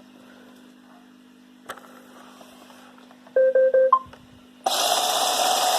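Roomba robot vacuum in its diagnostic mode sounding a quick run of electronic beeps, ending on a higher note, as it moves on to the next test. About a second later its brush motor starts and runs with a steady whir for the brush stall test.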